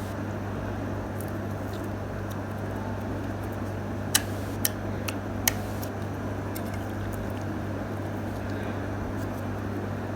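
Slime being handled, giving four short sharp clicks or pops within about a second and a half, a little over four seconds in, over a steady low hum.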